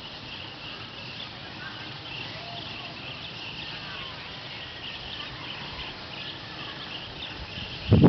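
Flock of blue-tailed bee-eaters calling, many short high chirps overlapping into a steady chatter. A sudden loud low thump comes right at the end.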